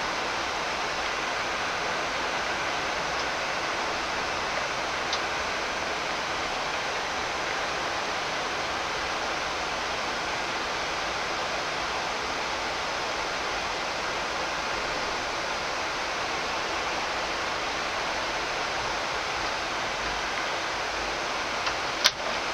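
Steady flight-deck noise of a Boeing 787-9 taxiing: an even rushing hiss that holds at one level throughout. A faint tick comes about five seconds in, and a single sharp click near the end.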